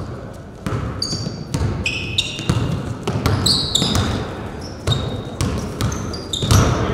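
A basketball bouncing on a gym floor in irregular thuds, with short high-pitched sneaker squeaks on the court in between.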